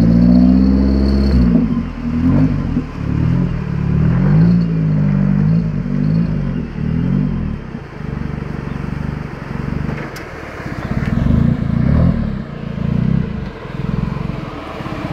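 GAZ Volga sedan's engine revving up and down again and again as its wheels spin in deep mud, the car stuck. The engine note rises and falls smoothly at first, then turns choppier and more broken in the second half.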